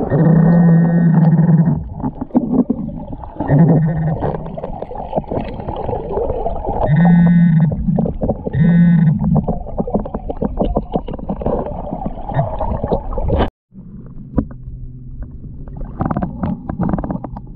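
A metal detector's low electronic buzz, heard underwater, sounding four times: one long tone at the start, then three shorter ones. Under it runs the rushing and knocking of water against a submerged camera. All of it breaks off suddenly about two thirds of the way through, and the water noise that follows is quieter.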